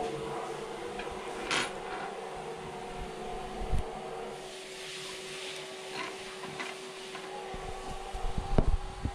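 Steady hum with a faint hiss, over which a glass print-bed plate is handled on a desk: a couple of light knocks, then a quick cluster of knocks and thumps near the end.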